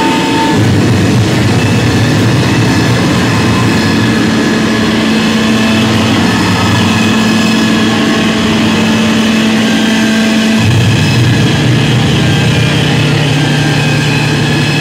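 Loud amplified noise drone from an electric guitar-type instrument run through a floor of effects pedals: a dense, unbroken wash of distortion over held low tones. About ten seconds in, the low drone changes pitch.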